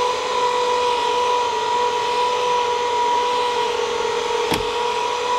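Portable electric air compressor running, a steady motor hum with hiss, as the old tyres are aired up. A single sharp click about four and a half seconds in.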